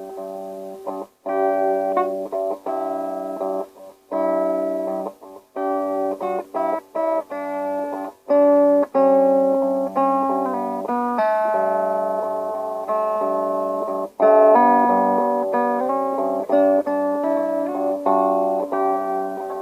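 Guitar tuned down about a whole step, playing a melodic run of single notes and short phrases in G Lydian, each note plucked and left to ring, with a few brief pauses between phrases.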